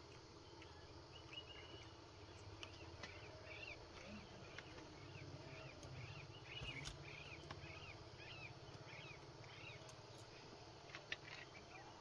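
Faint outdoor ambience with a bird repeating a short chirping call, about two a second for several seconds, and a few light clicks.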